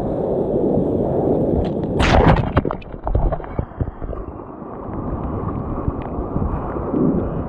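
Wind rumbling on the microphone over rushing water, broken about two seconds in by a sudden loud crash and a few sharp knocks.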